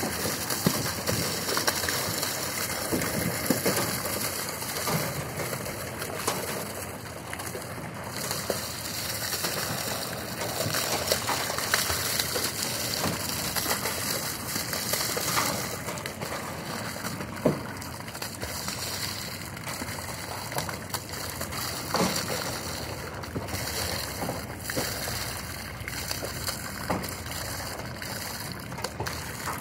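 Water gushing from a fish-stocking discharge pipe and splashing into a lake: a steady rush with a few sharper splashes as trout drop out of the pipe into the water.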